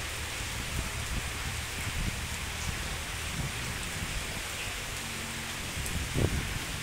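Steady rain falling on a wet concrete pier, an even hiss, over a continuous low rumble. A brief low thump stands out about six seconds in.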